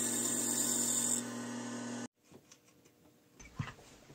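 Milling machine running an end mill through a hardened plastic finger pipe: a steady cutting and motor noise with a high whine that drops out about a second in. About two seconds in the sound cuts off abruptly, leaving near silence with a few faint clicks.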